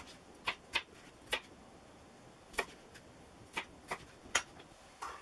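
Kitchen knife chopping a raw potato into cubes on a plastic chopping board: about eight or nine short knocks at uneven spacing as the blade cuts through and strikes the board.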